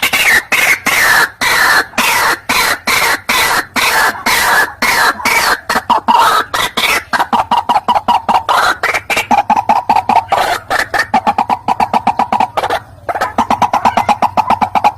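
White-breasted waterhen (ruak-ruak) calls played as a bird-trapping lure: a loud, unbroken run of harsh, fast-repeated notes, several a second, with rising and falling pitch. There is a brief pause about thirteen seconds in.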